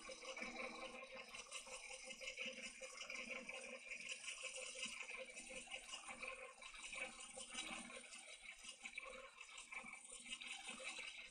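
Cordless drill running slowly, turning a screw extractor bit in a tiny stripped screw on a camera lens barrel: a faint, steady whir.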